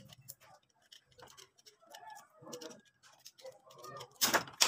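Handling a wire stripper and electrical wire: scattered small clicks, with a louder, sharper noise about four seconds in.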